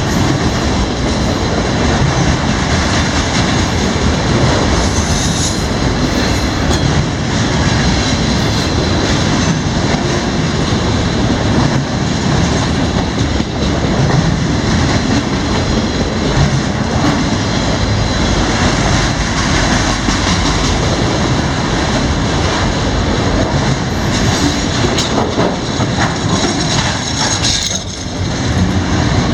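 CSX freight train's cars rolling past: a loud, steady rumble of steel wheels on rail, with clicks from the wheels crossing rail joints.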